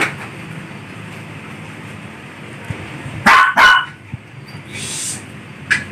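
A dog barking twice in quick succession about three seconds in, followed by a brief hiss.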